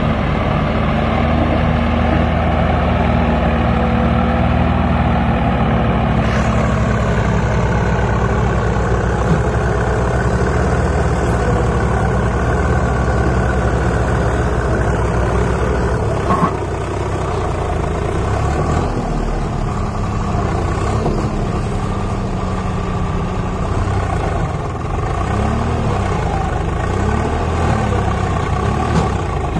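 Swaraj 744 FE tractor's three-cylinder diesel engine running hard under heavy load as it pulls a loaded trailer stuck in mud. Its note shifts about halfway through, and near the end the pitch rises and falls several times.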